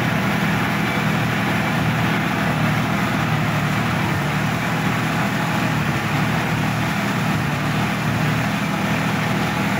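Sonalika DI-50 RX tractor's diesel engine running steadily, heard from the driver's seat close to the bonnet.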